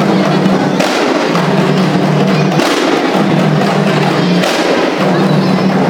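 An ensemble of kompang, hand-struck frame drums, playing together in a dense, fast interlocking rhythm. A heavier accent comes round about every two seconds.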